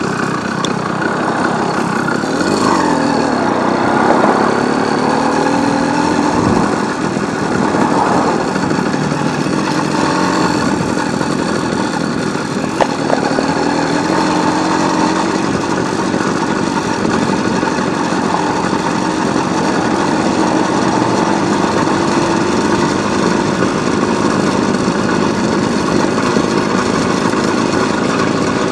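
Small motorcycle engine running while riding at low speed, its pitch rising and falling a few seconds in, then holding fairly steady, over a steady hiss of road and wind noise.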